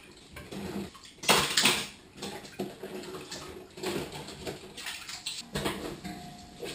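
Washing up by hand in a kitchen sink: water sloshing and splashing, with dishes knocking together in irregular bursts, the loudest a little over a second in.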